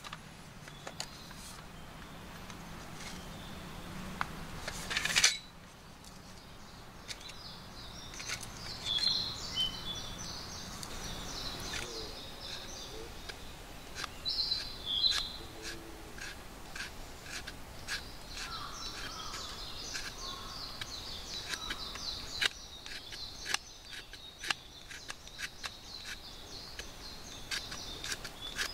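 Small knife whittling a thin stick into shavings for fire kindling: a long run of short, sharp scraping cuts. Birds chirp a few times in the background, and there is one sharp knock about five seconds in.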